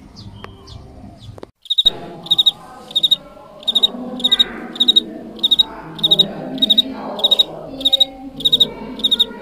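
A cricket chirping steadily, about two chirps a second, each chirp a quick high trill, starting about two seconds in. A low background murmur runs under it.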